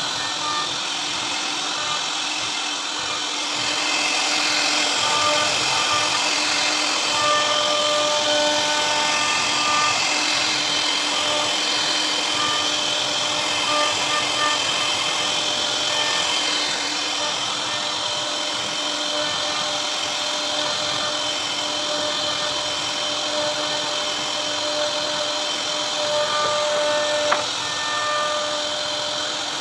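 CNC router spindle running steadily with a high whine as its bit carves a relief pattern into a wooden panel, with background music over it. One sharp click near the end.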